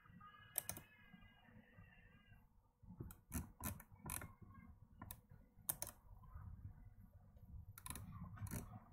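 Faint, scattered clicks of a computer mouse, a dozen or so in irregular clusters, some close together in pairs. A faint drawn-out tone is held through the first two seconds.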